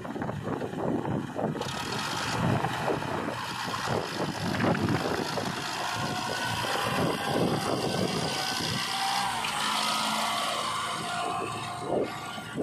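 Sonalika 745 DI tractor's diesel engine running under load as it pulls a trolley full of mud away through soft ground.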